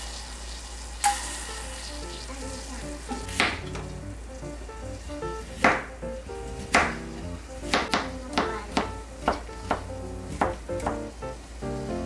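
Chef's knife slicing a zucchini on a plastic cutting board: about ten sharp chops, a second or so apart at first and quickening to about two a second. They follow a few seconds of steady hiss.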